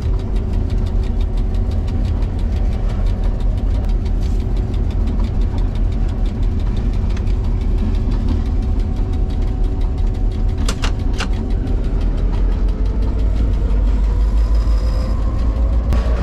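EMD G16 diesel-electric locomotive's V16 two-stroke diesel engine running, heard from inside the cab as a loud, steady, fast-pulsing rumble with a steady whine over it. Two sharp clicks come about eleven seconds in, and the whine rises a little in pitch near the end.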